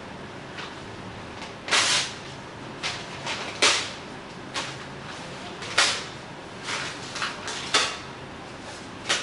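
A sheet of paper being torn into pieces: about ten quick rips in an irregular rhythm, the longest and loudest about two seconds in.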